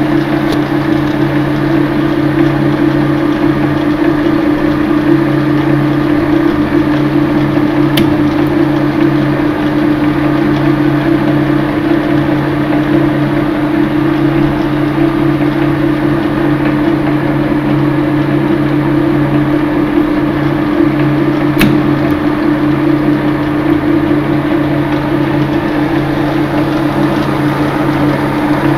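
Boxford lathe running: a steady mechanical hum from its motor and drive, with two faint clicks.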